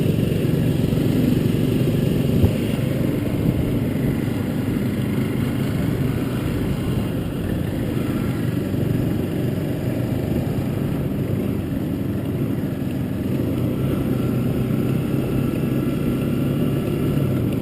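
A vehicle engine, likely a motorcycle, running steadily at an even speed, with a single sharp knock about two and a half seconds in.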